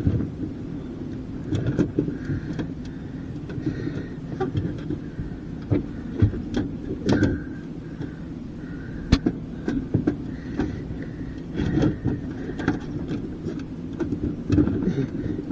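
Irregular metal knocks, clanks and rattles from a dishwasher being pulled apart for scrap, over a steady low rumble.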